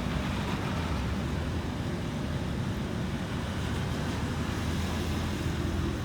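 Steady road traffic noise: vehicle engines running low with a constant hiss of passing traffic, no single vehicle standing out.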